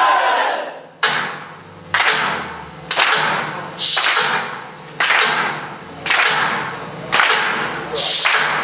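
A group clapping in unison, sharp hits about once a second, each ringing out in the hall.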